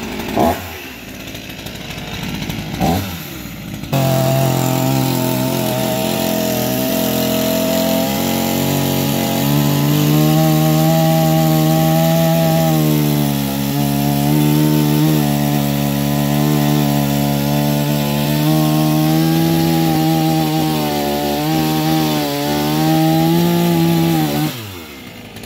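Petrol chainsaw cutting into a tree stump at ground level: a couple of short revs in the first few seconds, then held at full throttle for about twenty seconds, its note sagging briefly under load partway through, before the throttle is let off near the end.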